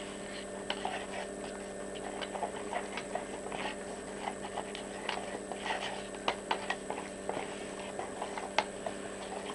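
A metal spoon stirring a runny white gesso mix in a plastic tub, with irregular clicks and scrapes where the spoon knocks against the tub. A steady hum runs underneath.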